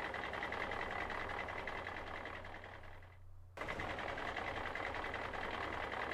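Construction machine engine running steadily, fading away about three seconds in, then starting again abruptly a moment later.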